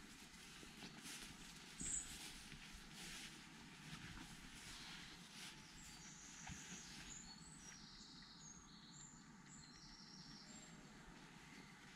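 Faint footsteps on a grassy path, and from about six seconds in a small bird singing a run of high, piping notes.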